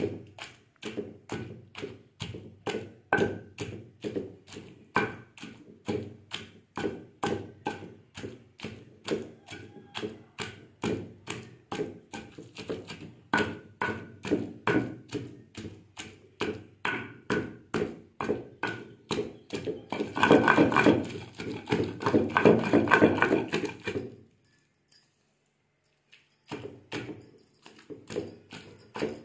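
A long pestle pounding chutney paste in a stone mortar: steady thuds at about two to three strokes a second. The strokes grow louder and denser for about four seconds toward the end, stop briefly, then start again.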